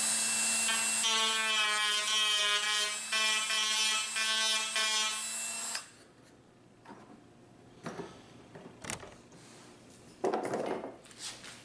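Dremel rotary tool running at high speed and cutting into the rifle stock's wood. Its whine wavers in pitch as the bit bears on the wood, then stops about six seconds in. A few light knocks and a short rubbing sound follow near the end.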